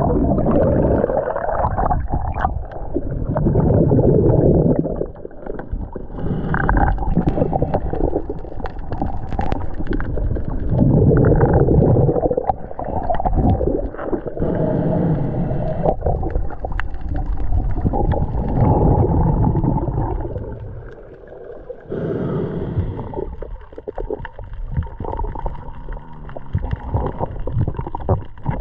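Muffled underwater water noise around a submerged camera: gurgling and sloshing that swells and fades every few seconds.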